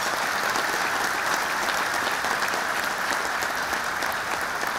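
Large seated crowd applauding steadily, a dense even patter of many hands clapping.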